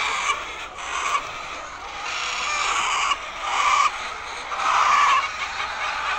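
Many laying hens clucking and calling at once, a dense continuous chatter with louder calls rising every second or so.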